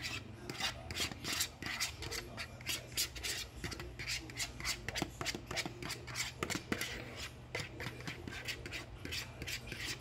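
Hands crumbling cheese and mixing it with chopped spinach in a bowl: a quick, uneven run of small crackles and rubs.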